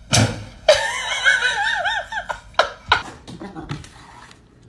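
A person giggling in a high voice, a run of quick bouncing laughs, followed by a few short sharp bursts of laughter that trail off.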